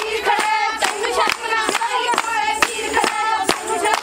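A group of women singing a Punjabi boli together, with hand clapping in a rough beat of about two to three claps a second.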